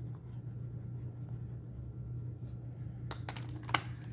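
Derwent Graphitint pencil scratching on paper as a colour swatch is shaded in, over a low steady hum. Near the end come a few sharp clicks as the pencils in their metal tin are handled, one louder than the rest.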